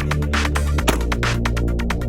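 Electronic dance music with a heavy sustained bass line and fast, even hi-hat ticks.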